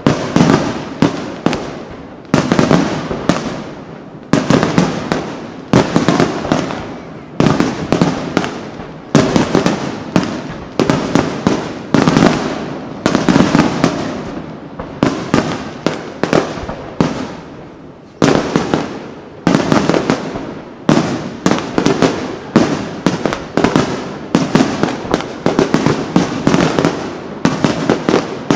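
A dense barrage of aerial firework shells bursting, loud bangs coming many times a second and overlapping, each wave of bangs dying away before the next.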